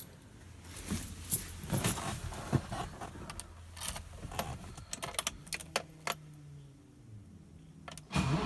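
Keys jangling and clicking at the ignition of a 1978 BMW E12 528i, then a faint steady hum for a few seconds. Near the end the starter cranks the cold M30 2.8-litre straight-six for a cold start after it has stood for a couple of days.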